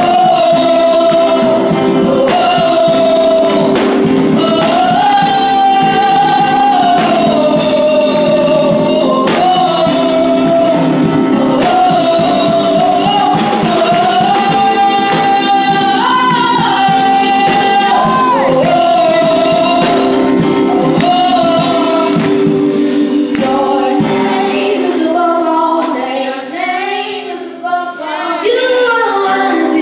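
Live gospel praise-and-worship singing: a solo voice sings long held notes that slide between pitches, amplified through a microphone, over sustained accompaniment chords. Near the end the low accompaniment drops away and the voice carries on in freer, ad-lib phrases.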